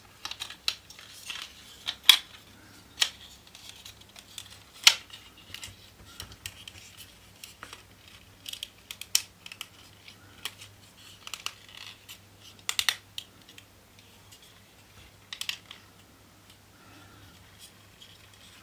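Irregular clicks, taps and light scraping of hard plastic model-kit parts for an Opel Manta A GT/E being handled and pressed together by hand, over a faint steady low hum.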